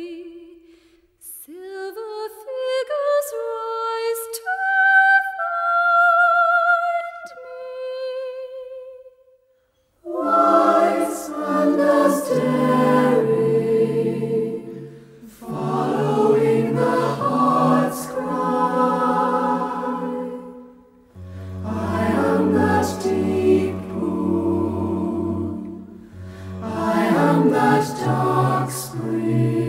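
Background vocal music. A single voice sings a slow melody with vibrato, then after a short pause a choir sings in long phrases with breaks between them.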